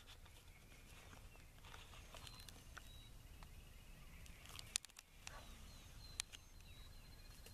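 Quiet outdoor dawn ambience with faint distant bird calls, thin high chirps, and two sharp clicks a little under five and about six seconds in.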